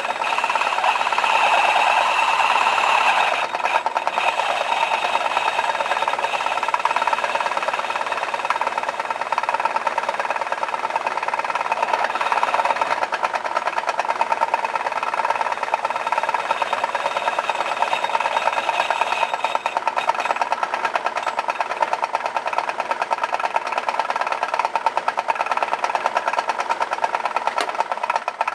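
Small Craftsman 109 bench lathe running under power while a high-speed steel bit faces off a workpiece held in a three-jaw chuck. It makes a steady whine with a fast, even rattle, a little louder for the first few seconds.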